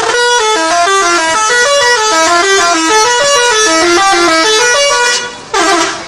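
Bus telolet horn, a multi-tone bus horn, playing a quick tune of short notes stepping up and down, about four a second. Near the end the tune breaks off briefly and a last note slides down.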